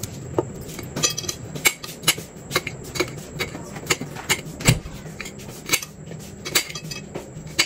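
Knife chopping a green chilli in a glass bowl, the blade clicking against the glass in sharp, irregular strokes about twice a second.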